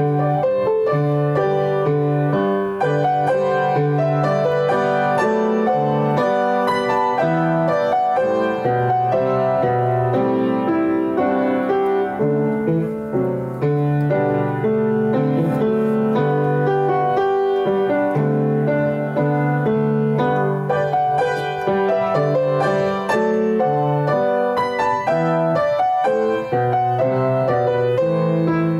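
Piano music playing steadily, with held notes and chords that change about once a second.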